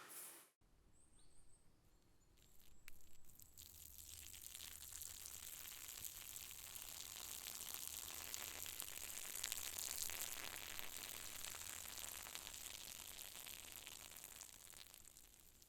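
A person peeing outdoors: a steady hissing, splashing stream on the forest ground. It starts about three seconds in after a few faint rustles, grows louder toward the middle and tapers off near the end.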